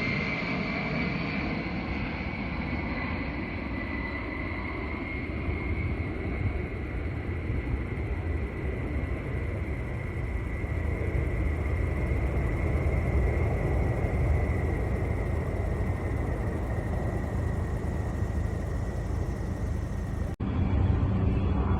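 Aircraft engine running with a steady rumble and a high whine that falls slowly in pitch. About 20 seconds in it cuts off suddenly, giving way to a louder, lower rumble.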